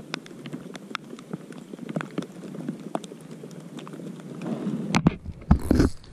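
Scattered raindrops tapping irregularly, picked up by a microphone carried in a hoodie pocket. About five seconds in there is a knock, then loud muffled rustling of the clothing around the microphone.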